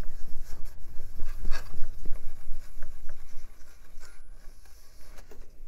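Paper towel rubbing over the metal heat spreader of a Celeron processor, wiping off old thermal paste in quick, irregular scrubbing strokes that grow softer in the second half.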